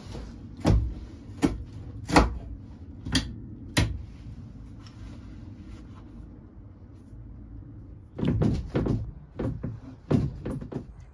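Sharp knocks and clunks, five spaced over the first four seconds, then a quicker cluster about eight seconds in: an old boat's steering wheel being wrenched against a locked-up steering cable.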